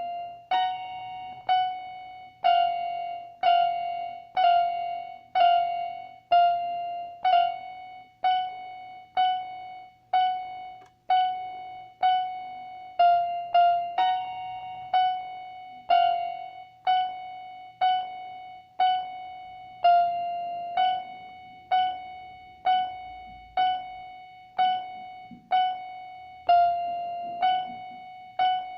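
Electronic keyboard with a piano-like voice, repeating one note about once a second, each note struck and dying away. A higher note slips in briefly twice.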